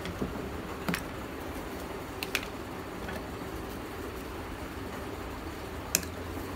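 Brittle slabs of roasted black multani mitti (fuller's earth clay) knocking and clinking against each other as gloved hands shift and lift them: a sharp click about a second in, a quick pair a little past two seconds, and another near six seconds, over a steady low hum.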